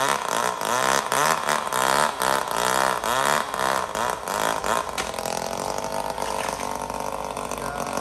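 Small two-stroke chainsaw engine revved up and down over and over, as when cutting into wood. It then settles into a steadier, lower running note that falls slowly, and cuts off suddenly at the end.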